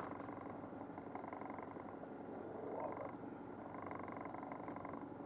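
Outboard boat motor running steadily at trolling speed, with a splash right at the start as a hooked fish thrashes at the surface beside the boat.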